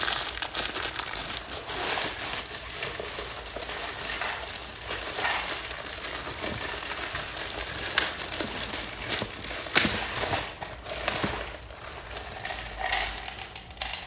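Packaging being handled and unwrapped: rustling and crinkling, with scattered clicks and knocks, two sharper knocks about eight and ten seconds in.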